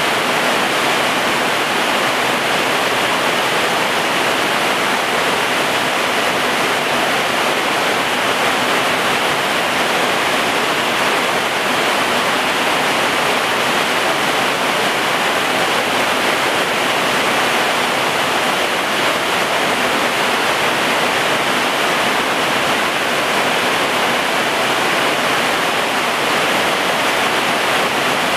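Heavy rain pouring down steadily on garden plants and ground: a loud, even hiss with no let-up.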